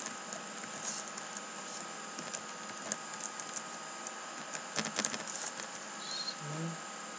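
Computer keyboard typing: scattered single keystrokes, with a quick run of keys about five seconds in, over a steady background hiss.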